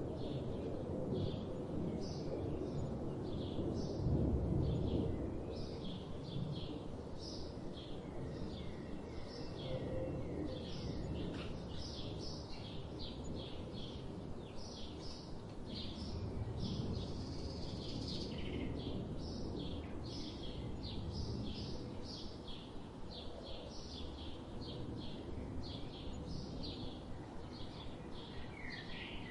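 Several small birds chirping and calling over one another in quick, short notes, over a steady low outdoor rumble that swells briefly about four seconds in.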